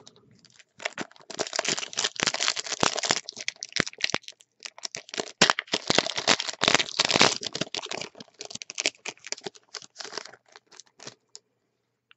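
A Yu-Gi-Oh! Legendary Duelists booster pack's foil wrapper crinkling and being torn open by hand. It is a dense run of sharp crackles that starts about a second in and dies away about a second before the end.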